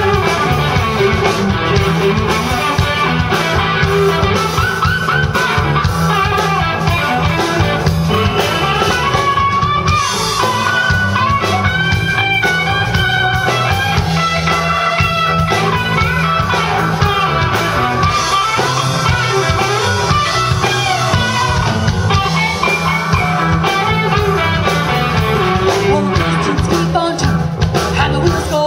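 Live rock band playing an instrumental passage: electric guitar out front over a drum kit and bass guitar keeping a steady beat.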